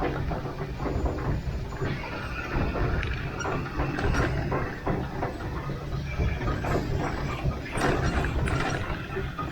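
Small narrow-gauge 0-4-0T steam locomotive under way, heard from the cab: a steady low rumble with irregular clanks, knocks and rattles.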